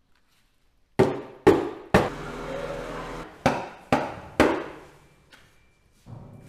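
Sea salt being packed into bamboo tubes: two groups of three sharp wooden knocks, about half a second apart, as the salt is tamped down. Between the groups there is a steady hiss of pouring salt, and a softer scraping follows near the end.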